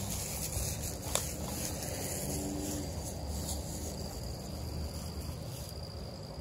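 Footsteps through grass and rubbing handling noise from a moving camera while walking dogs on leashes, with one sharp click about a second in.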